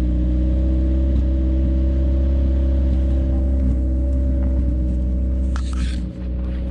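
A vehicle engine idling steadily nearby, its pitch holding level with no revving. A short rustling noise comes in about five and a half seconds in.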